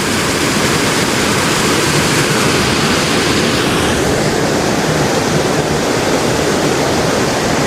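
Creek waterfall pouring into a pool: a steady rush of falling water.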